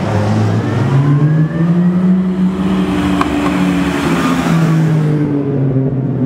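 Jaguar XK roadster's straight-six engine accelerating past, its pitch rising over the first couple of seconds and then easing off, the sound dulling as it moves away near the end.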